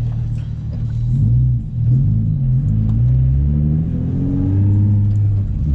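Nissan 350Z's 3.5-litre V6, heard from inside the cabin, pulling through the gears under acceleration. Its note drops at gear changes in the first couple of seconds, then rises in one long, steady climb.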